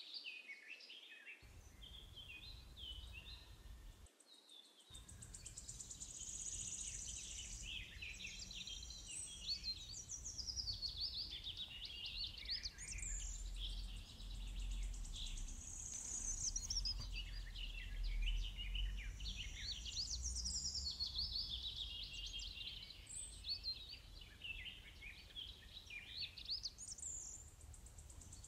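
Songbirds singing and chirping, many short overlapping calls and whistles without a break, over a faint low rumble.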